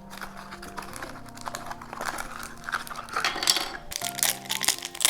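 A Shopkins Happy Places blind-bag packet being crinkled and torn open by hand, with crackling that is loudest about three and a half seconds in. Soft background music plays underneath.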